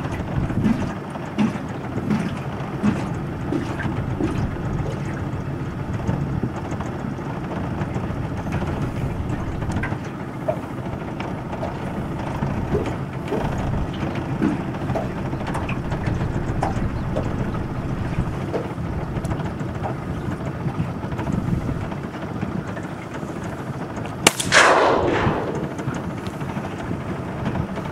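A single shotgun shot about 24 seconds in, a sharp crack whose report rings out and dies away over about a second, over a steady low rumble. The shot brings down a duck.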